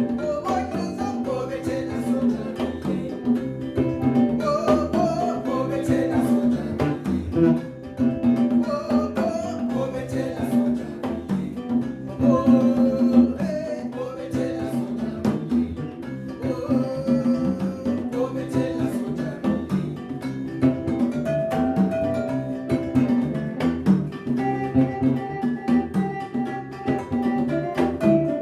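Gyil, the West African wooden xylophone with gourd resonators, struck with mallets, playing along with electric guitar, acoustic bass guitar and a hand drum in a small live band.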